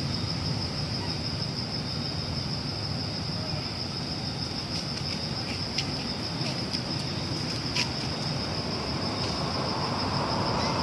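Insects droning outdoors: one steady, unbroken high-pitched tone over a low background rumble, with a few faint clicks in the middle.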